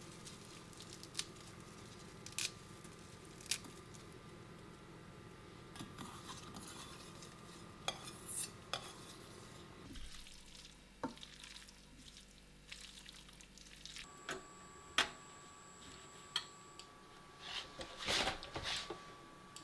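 Kitchen cooking sounds: a utensil stirring and clinking against a pan and dishes while lemon pasta is made. Scattered light clinks and knocks, a few louder ones near the end.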